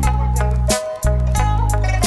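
Background music with a deep bass line, a melody and sharp drum hits in a steady beat.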